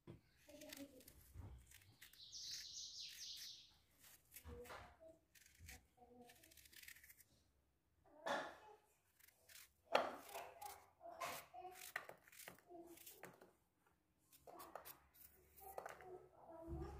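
Knife slicing through a crisp apple, a scattered series of short cuts and scrapes, then small apple chunks cut and dropped into an empty non-stick frying pan, each landing with a light tap.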